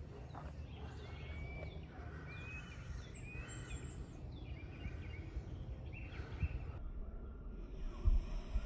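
Small birds chirping repeatedly in short calls over a steady low background rumble, with a couple of low thumps near the end.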